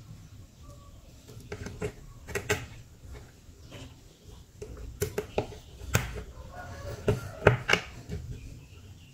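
Scattered clicks and knocks of handwork on an amplifier's aluminium heatsink: a small screwdriver and the power transistors being handled, the sharpest knock about seven and a half seconds in.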